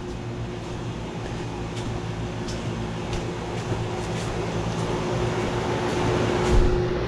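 Steady vehicle engine hum, slowly growing a little louder, with faint ticks and a low thump about six and a half seconds in.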